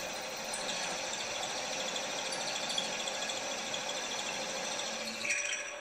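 Twist drill in a milling machine's chuck running and cutting into a small metal casting, a steady machine noise with fine cutting chatter, as the bit nears breaking through into the first hole. A brief louder scrape comes near the end.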